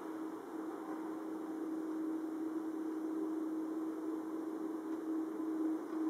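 Distant aircraft taking off: a steady rumble with a constant low hum, slowly growing a little louder.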